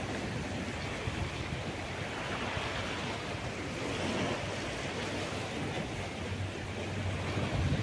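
Ocean surf washing in as a steady rushing noise, with wind gusting on the microphone, the gusts strongest near the end.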